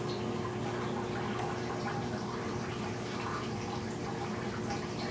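Aquarium water circulation running steadily: a constant hum under trickling water with scattered small drips and bubbles.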